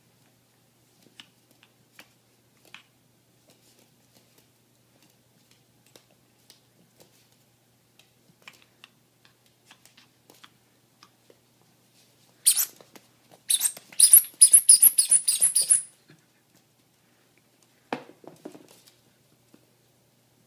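Dog squeak toy squeezed by a puppy's bite: a fast run of short, high-pitched squeaks about two-thirds of the way in, after faint light taps. A shorter, lower burst follows near the end.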